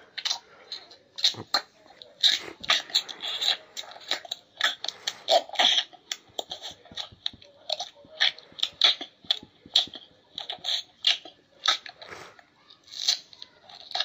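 Irregular crunching clicks close to the microphone, coming in quick uneven clusters, like something crunchy being chewed.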